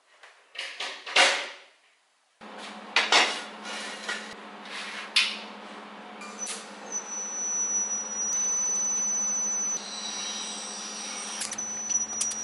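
Welding on a steel frame in short runs, with a thin steady high-pitched whine from a faulty shielding-gas pressure regulator. A few metal knocks from parts and tools being handled come before the welding.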